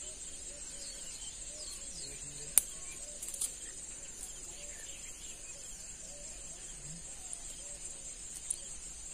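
Steady high-pitched insect chorus, with faint short calls repeating lower down. A sharp click comes about two and a half seconds in, followed a second later by a few softer clicks.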